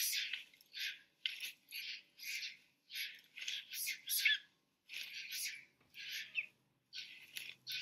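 Harsh, high-pitched animal shrieks, short and repeated about twice a second.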